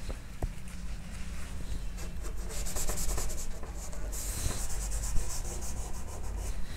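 Chalk scraping on a chalkboard as lines are drawn: a run of short scratchy strokes from about two seconds in, then one longer stroke a little after four seconds.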